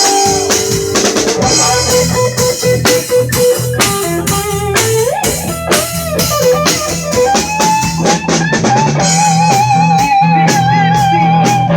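Band playing an instrumental passage: a lead guitar line with pitch slides, ending on a long held note with vibrato, over a drum kit and a low bass line.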